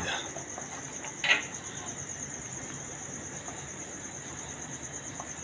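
Crickets chirring steadily in a high, finely pulsing trill. Just over a second in, one brief sharp sound stands out above it.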